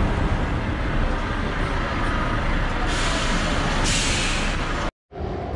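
Volvo FH tractor unit hauling a tanker trailer rolling past at low speed, its diesel engine running, with a loud hiss of air from the air brakes about three seconds in. The sound cuts off suddenly near the end.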